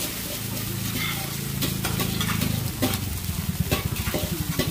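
Metal spatula scraping and clicking against a steel wok as pad thai noodles are stir-fried over a charcoal stove, the food sizzling. A low, rapid throbbing comes in about three seconds in.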